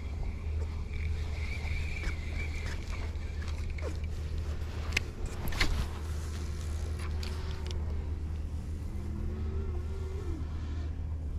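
Bow-mounted Minn Kota electric trolling motor running in a low steady hum with a faint high whine, holding the boat in place on spot lock. A few light clicks come about five seconds in.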